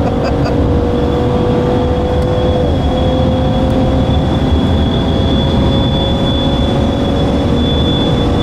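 Cabin sound of a 2014 Cadillac CTS twin-turbo V6 driven hard on a racetrack: the engine runs with a steady note over loud road and tyre noise, with a thin high whine on top. The engine note dips briefly about three seconds in.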